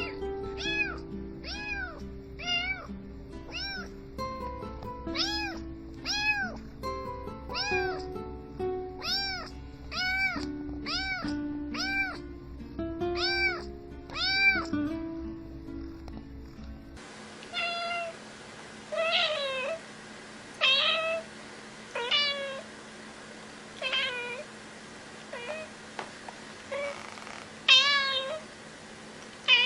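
A cat meowing over and over, about one arched meow every half second or so, over background music. Partway through, the music stops and a higher-pitched cat meows singly, each meow falling in pitch, about one a second.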